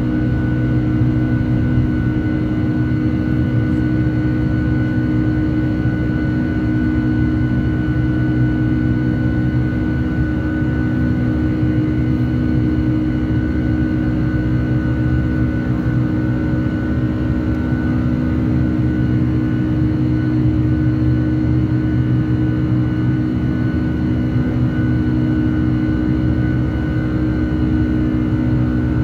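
Cabin noise of a British Airways Boeing 747 climbing out after takeoff: the steady drone of its four Rolls-Royce RB211 turbofans at climb power and the rush of air past the fuselage, with several steady humming tones on top.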